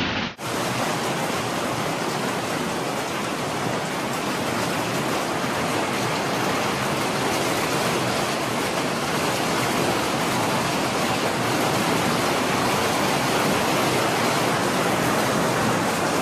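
Heavy hailstorm: hail and rain pelting the ground in a dense, steady hiss that begins abruptly a fraction of a second in.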